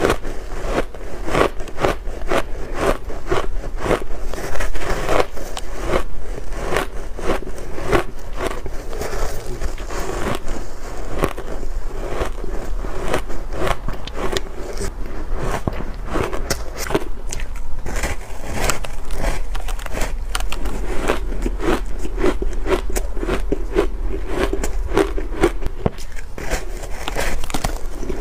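Close-up crunching of dry shaved ice dusted with matcha powder as it is bitten and chewed: a dense, continuous run of crisp crunches, several a second.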